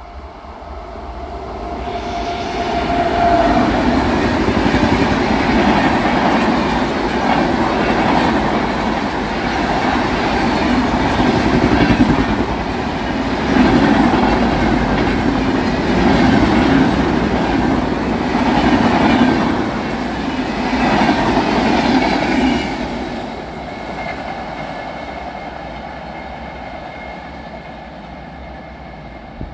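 Indian Railways express train of LHB coaches passing at speed, its wheels clattering on the rails. The sound rises in regular swells as the coaches go by, builds up over the first couple of seconds and fades away over the last several seconds.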